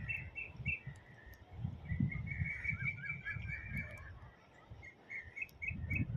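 Small bird singing runs of quick repeated chirps: a short run at the start, a longer one from about two seconds in, and another near the end. Underneath, an uneven low rumble of wind buffeting the microphone.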